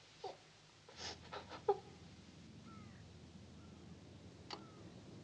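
A young woman sobbing in short gasping bursts through the first two seconds. Then a steady low hum with a few faint short chirps and a single click near the end.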